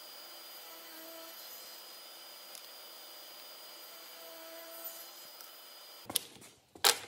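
Festool CSC SYS 50 cordless table saw running with a faint steady whine as it cuts thin walnut wedges, the tone changing briefly twice during the cuts. Near the end, a few sharp wooden clacks as the cut wedges are set down on one another.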